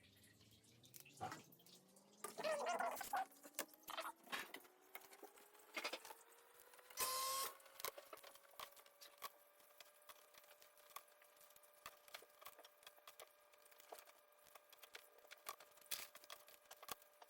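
Plastic zip ties being threaded through a board and pulled closed: scattered small clicks and two short ratcheting rasps, the louder about seven seconds in. A faint steady tone rises in pitch over the first half and then holds.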